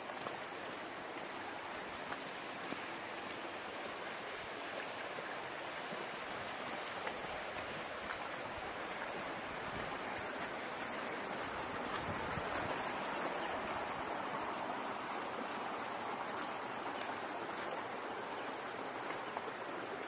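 Steady rushing outdoor noise with no distinct events, swelling slightly in the middle.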